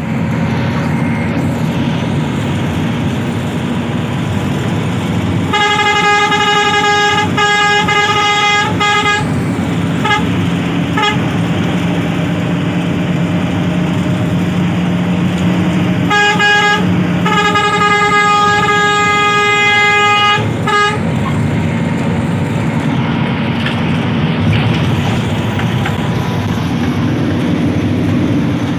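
Intercity bus horn sounding one steady note: a long blast of several seconds, two short toots, then another long blast broken by a brief gap, over steady engine and road noise.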